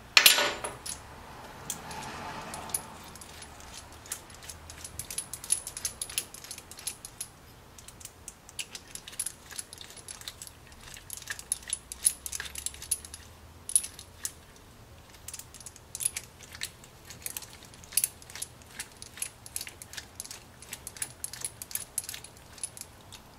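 Ratchet wrench turning the rocker-shaft bolts on a Nissan H20 engine's cylinder head, clicking in irregular runs. There is one sharp metallic clank right at the start.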